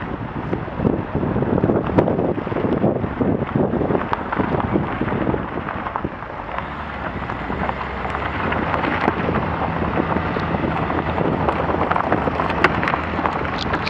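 Team car driving slowly over a rough dirt and grass track, heard from a camera on the outside of the car: wind buffeting the microphone and tyres rumbling and crunching on the dirt, with sharp clicks of grit and stones, several near the end. A low steady engine hum comes in about halfway through.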